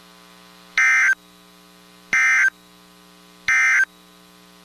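Three short bursts of Emergency Alert System SAME digital data tones, each about a third of a second long and about a second apart: the end-of-message code that closes the warning broadcast. A faint steady electrical hum runs underneath.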